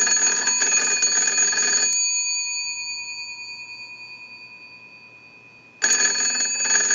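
The twin bell gongs of an antique American Electric wooden wall crank telephone, rung by a ring cycle sent from a line analyzer as for an incoming call. The bells ring rapidly for about two seconds, then ring out and fade, and ringing starts again about six seconds in.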